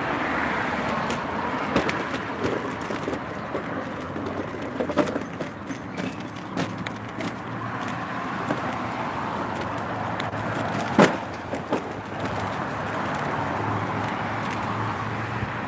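Cars passing on the street, a steady rush that swells and fades, with small metallic jingles and clicks throughout and one sharp click about eleven seconds in.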